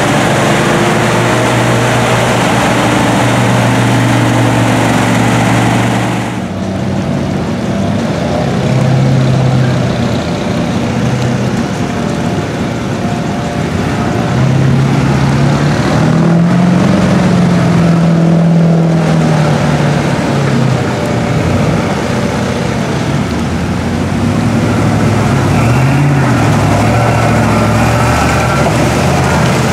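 Engines of lifted mud trucks running and revving as the trucks drive through floodwater and mud. The engine pitch rises and falls about halfway through, and the sound changes abruptly about six seconds in as a different truck takes over.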